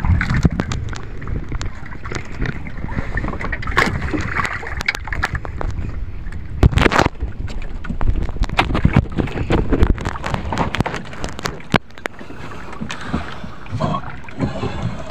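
Water sloshing and slapping against a small wooden outrigger canoe, with wind on the microphone and irregular sharp knocks and clicks from the boat, the loudest about seven seconds in.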